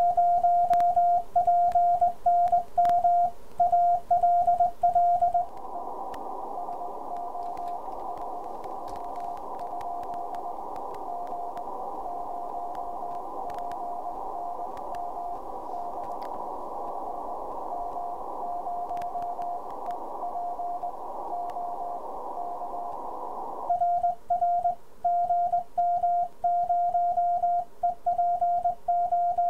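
Hand-sent Morse code on a Begali Spark straight key: the Ten-Tec Orion transceiver's sidetone beeps on and off in dots and dashes. About five seconds in, the radio switches to receive: receiver hiss with a fainter Morse signal from another station in a contact. Near the end the keyed sidetone returns.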